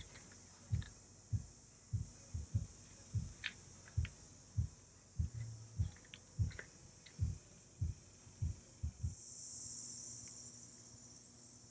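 Soft, irregular low thumps, one or two a second, over a steady high insect chirring that swells about nine seconds in.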